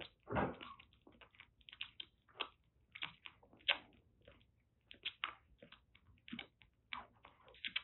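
Month-old kitten suckling at a milk bottle's nipple: irregular wet smacking clicks, a few a second, with a louder bump about half a second in. The kitten is still clumsy at the bottle, so the clicks are uneven.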